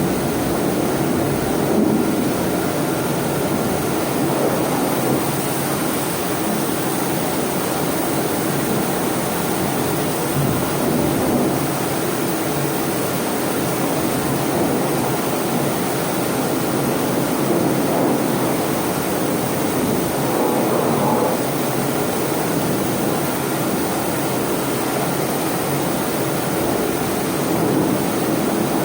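High-pressure water jet washing down a ship's forecastle deck: a loud, steady rushing spray.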